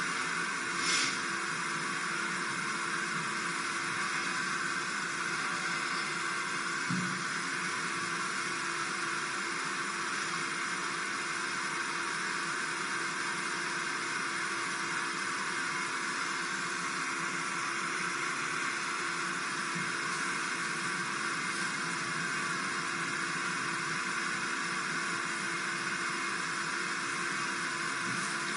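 Steady static-like hiss with a faint steady hum underneath.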